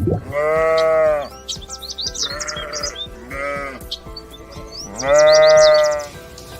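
Sheep bleating four times: a long loud bleat, two shorter ones, then another long loud bleat near the end.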